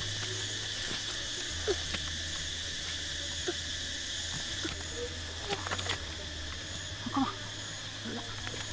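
Steady high-pitched chorus of insects droning, with a few faint short calls scattered through it.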